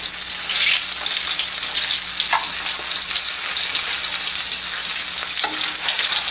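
Chicken galantine rolls sizzling steadily as they shallow-fry in oil in a skillet, with a couple of light clicks as tongs turn them in the pan.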